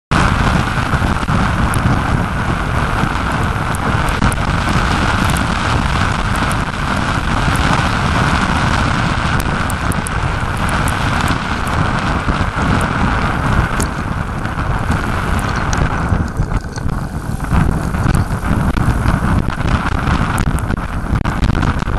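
Wind buffeting the microphone of a camera riding along a wet road, a steady loud rumble mixed with the hiss of tyres on wet tarmac and small ticks of rain drops. The higher hiss thins out for a moment about 16 seconds in.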